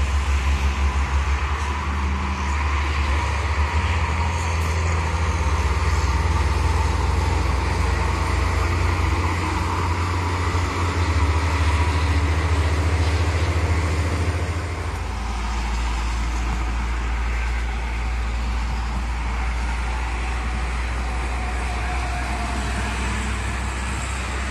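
Steady highway traffic noise: tyres and engines of cars and trucks passing on a multi-lane toll road, with a deep rumble underneath that shifts about fifteen seconds in.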